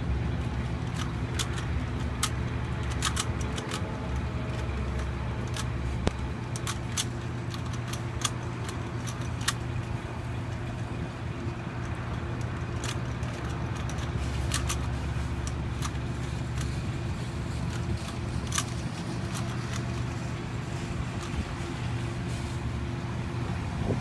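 A plastic Rubik's Cube being twisted by hand: quick, irregular clicks as its layers turn, coming thickest in the first ten seconds. Under them runs a steady low mechanical hum.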